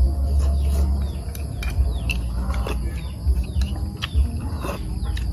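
Outdoor eating sounds: short clicks of chopsticks against ceramic bowls and chewing, over a low rumble. Birds chirp now and then behind a steady high insect buzz.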